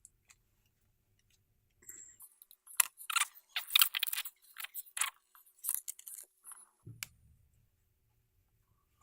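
Hands working on small hobby-drone parts: an irregular run of light clicks and scratchy scrapes for about five seconds, starting a couple of seconds in.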